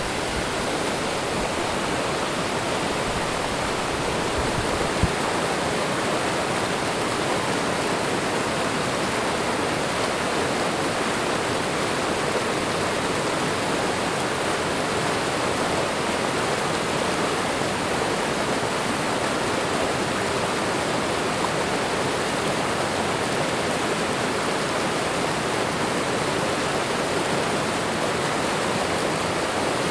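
Waterfall: water pouring and splashing in a steady, even rush, with one brief faint knock about five seconds in.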